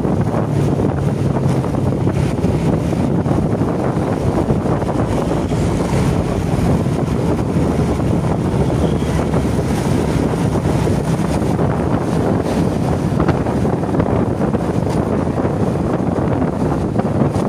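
Wind buffeting the microphone over the steady running of a vehicle travelling along the road, a dense, even rush with no distinct events.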